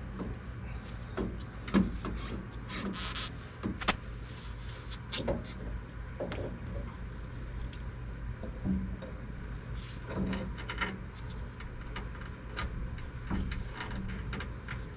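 Scattered metal clinks, knocks and short scrapes as a replacement front CV axle is handled and worked into place in the suspension, over a steady low rumble.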